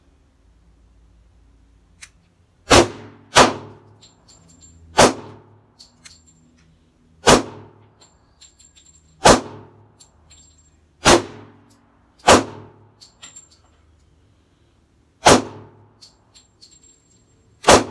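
Pistol shots fired one at a time at a target: nine shots at uneven gaps of about one to three seconds, each with a short ringing echo.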